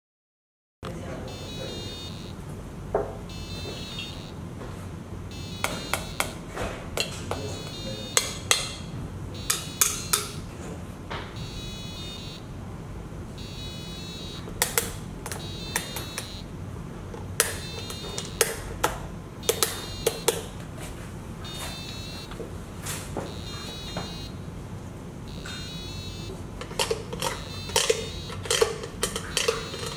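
Hands working an interactive collage board of bicycle parts, a bottle and other found objects: irregular clicks and metallic clinks in clusters, mixed with short bursts of rapid electronic chirping, over a steady room hum. The sound starts just under a second in.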